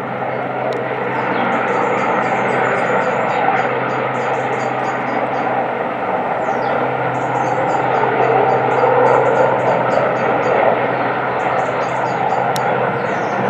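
Rescue helicopter running steadily: a continuous engine and rotor noise with a low, even hum underneath, growing slightly louder about halfway through, and faint short high chirps over it.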